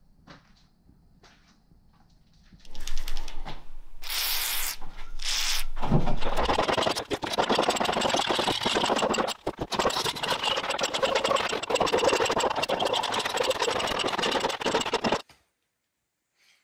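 A loud machine-like noise with a fast, even rattle starts about six seconds in, runs for about nine seconds and cuts off abruptly. A few shorter bursts of hiss come just before it.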